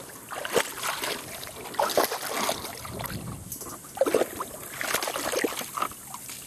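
Water splashing and sloshing in a plastic kiddie pool as a German Shepherd moves around in it, in irregular bursts.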